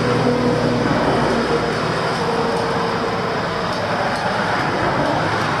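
Road traffic: a heavy vehicle's engine hum over a steady rush of engine and tyre noise, the hum fading after about three and a half seconds while the rush carries on.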